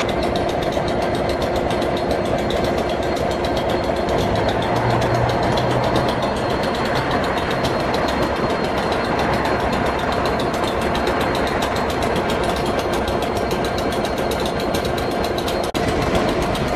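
Train standing in the station with its engine idling: a steady mechanical rumble and hiss with a fast, even beat, dropping out for an instant near the end.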